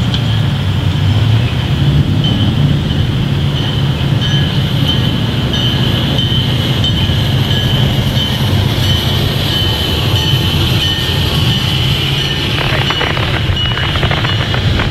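Norfolk Southern intermodal freight train passing, a steady low rumble of the cars with a thin high whine above it. In the last couple of seconds there is rapid clicking as the wheels pass close over the rail joints.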